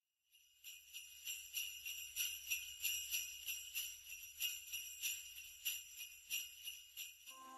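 Jingle bells shaken in a steady rhythm, about three shakes a second, with music starting right at the end.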